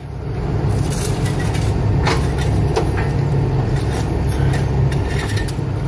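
Steady low rumble of a running engine, with a few sharp clinks of steel chain against steel formwork frames.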